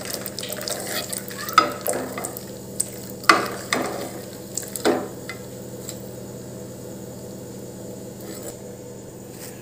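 Tapioca chips sizzling in hot oil in a pan. A metal slotted skimmer scrapes and clinks against the pan a few times in the first five seconds as the fried chips are scooped out. After that the sizzle goes on alone, quieter.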